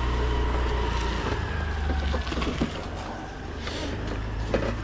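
A low, steady engine rumble that drops off about two seconds in, with a few light clicks and knocks over it.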